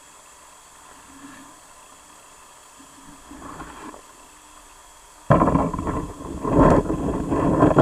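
Water noise picked up by an underwater camera: a faint steady hiss, then, about five seconds in, a sudden loud, rough rushing and rumbling of moving water with irregular surges.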